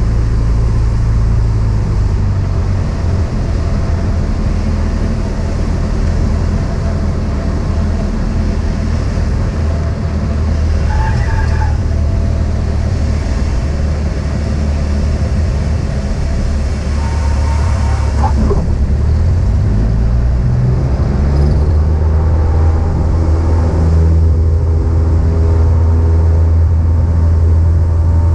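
Cessna 172's piston engine and propeller drone steadily, with the pitch rising briefly about two-thirds of the way through as the engine speed changes.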